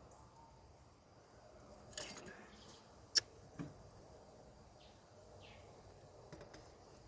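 A few sharp clicks and knocks from air-intake parts being worked into place by hand, the loudest just after three seconds in. Faint birds chirp in the background with short falling calls.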